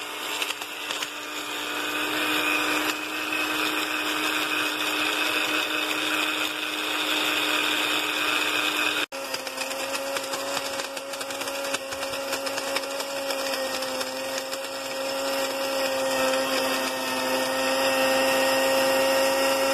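Small personal blender motor running steadily, grinding salad croutons into breadcrumbs. It cuts out briefly about halfway through, then runs on.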